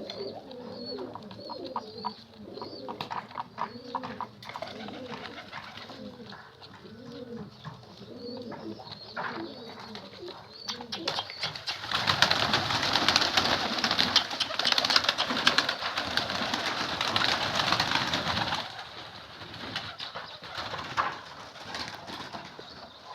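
Domestic pigeons cooing repeatedly, a run of rising-and-falling calls. About twelve seconds in, a loud rustling rush lasting about six seconds covers the cooing, then the cooing resumes faintly.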